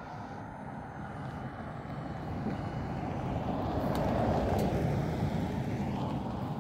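A road vehicle driving past, its engine and tyre noise swelling to a peak about four seconds in and then fading.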